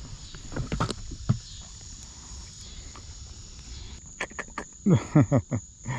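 Evening crickets chirring steadily, with clicks and knocks as a small blue catfish is handled in a boat. A few loud, short grunting sounds with falling pitch come near the end.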